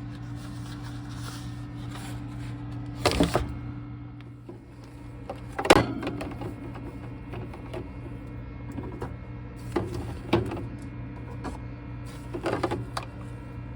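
Kitchen items, likely plastic food containers, being handled and set down: a few sharp clatters and knocks spread over the stretch, over a steady low hum.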